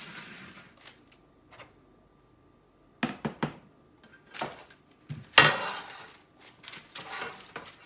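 A spoon knocking and scraping as sticky biscuit batter is scooped from a bowl and dropped onto a parchment-lined baking sheet. There are a few sharp knocks about three seconds in, then a louder rustling scrape of the parchment paper a little past halfway.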